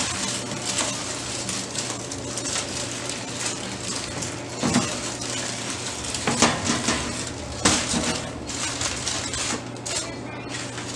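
Aluminium foil crinkling and rustling as it is peeled back from around a large smoked beef brisket, with a few sharp knocks in the middle as the metal tray and the meat are shifted onto wooden cutting boards.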